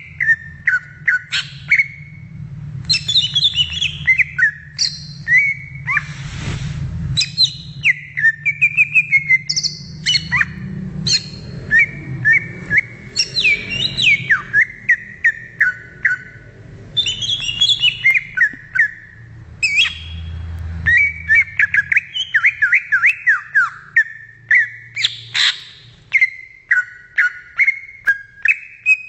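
Green leafbird (cucak ijo) singing: a fast, varied run of chirps, whistles and sliding notes with few pauses, over a steady low hum. A brief rush of noise comes about six seconds in.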